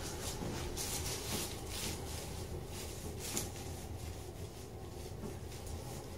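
Soft rubbing and rustling of hands, clothing and treatment table during a manual chiropractic adjustment. Several faint clicks come in the first two seconds and a sharper one about three and a half seconds in, over a steady low hum.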